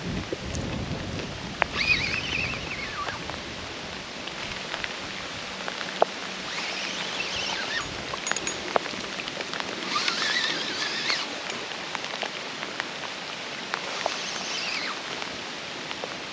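Steady rain falling, with scattered drops tapping close by. Four short high sounds that rise and fall, each about a second long, come through the rain at intervals.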